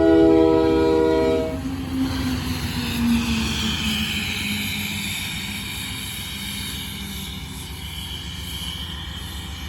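Union Pacific diesel locomotive's air horn sounding a chord that cuts off about a second and a half in, followed by the diesel engine running with a high whine, growing gradually quieter.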